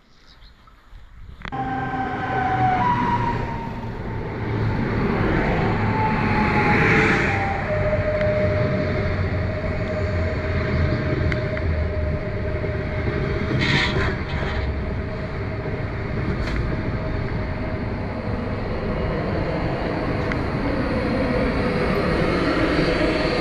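Two coupled PESA Dart electric multiple units passing close by: a loud rush of wheels and air sets in suddenly about a second and a half in. Whining tones fall in pitch and then settle into one steady whine under the rush.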